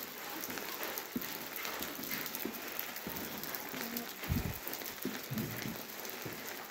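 Rain falling on wet pavement, a steady hiss, with a couple of low thumps about four and five and a half seconds in.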